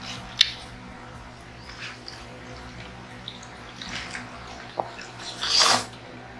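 Close-up eating sounds: small clicks and smacks of mouths, hands and food, then a loud wet slurp of spaghetti about five and a half seconds in, over a steady low hum.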